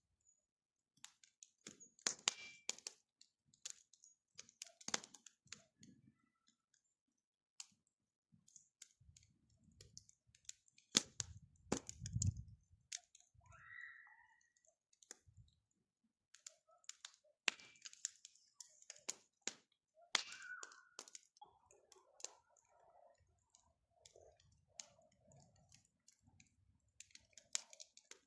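Wood fire crackling, with irregular sharp cracks throughout and a brief low rumble near the middle.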